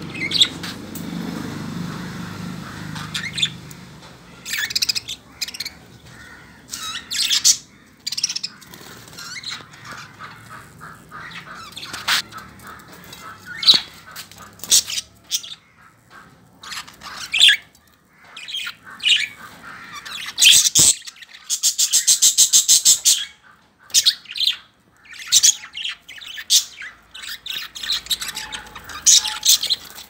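A flock of budgerigars chirping and chattering in short, scattered calls, with one fast rattling run of notes lasting about two seconds past the middle.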